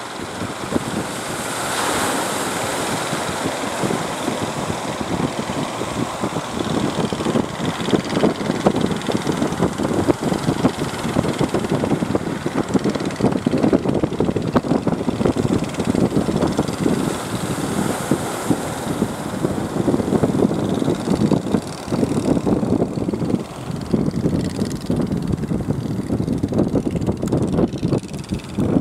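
Steady rushing of wind on the microphone mixed with sea water washing against a rocky shore, rising and falling irregularly.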